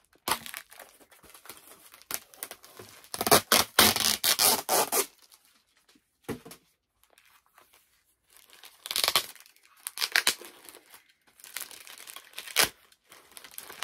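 A mail-order package being torn open by hand: irregular bursts of tearing and crinkling packaging, loudest about a quarter of the way in, a lull of a few seconds midway, then more tearing.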